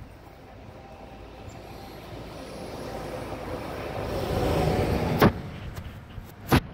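A box delivery truck driving past, its noise swelling and then fading as it goes by. Two sharp knocks near the end are the loudest sounds.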